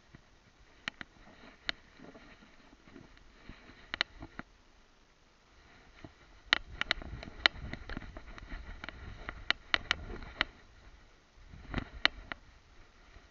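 Handling noise from a small camera strapped to a dog's head: irregular sharp clicks and crackles with a low rumble as the dog moves. A few scattered clicks come first, then a dense run of them from about halfway through, and a short cluster near the end.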